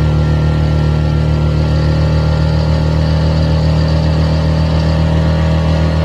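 Suzuki GSX-S150's stock single-cylinder engine and exhaust running at a steady speed while cruising, heard from the rider's seat, its note holding one even pitch.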